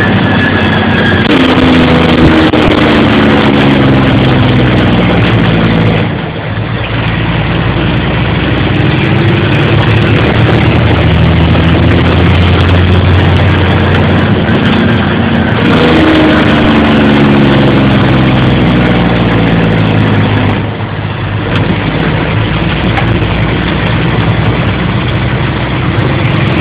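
Caterpillar C12 inline-six diesel with its engine compression (Jake) brake on: a loud cackle that falls in pitch as the engine slows. It happens twice, each time for several seconds, and stops abruptly, with the engine running on in between. Heard from inside the truck's cab.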